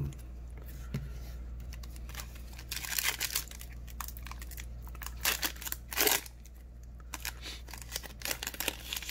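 Foil wrapper of a Panini Mosaic trading-card pack crinkling and being torn open, in short irregular rustling bursts, the loudest about six seconds in and a quick run of them near the end.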